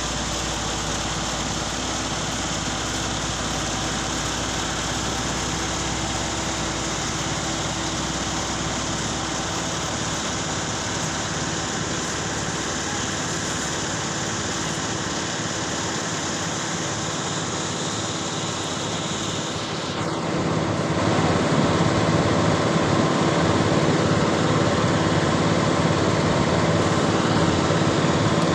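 Heavy machinery engine running steadily, growing louder about twenty seconds in.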